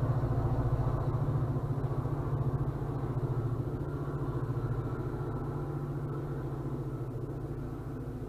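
Diesel locomotive engine running steadily with a fast low pulse, fading slowly as an MBTA commuter train pulls away, heard from inside a parked car.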